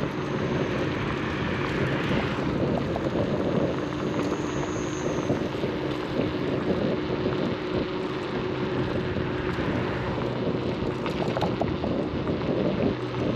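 Wind rushing over the microphone and road noise from riding an Inmotion RS electric scooter, with a faint steady hum underneath.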